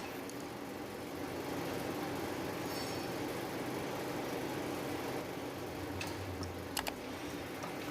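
Steady running hum of a planing machine, with a few sharp clicks about six to seven seconds in.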